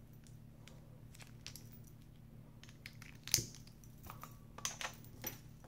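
AAA batteries being handled and clicked into a flashlight's battery carrier: scattered light clicks and taps, the sharpest about three and a half seconds in, then a quick run of small clicks.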